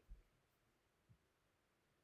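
Near silence: faint room tone with a soft low thump just at the start and another about a second in.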